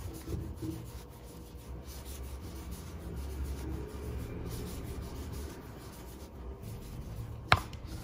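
Soft rubbing and rustling of acrylic yarn against a crochet hook as a raised post stitch is worked by hand, with one sharp click near the end.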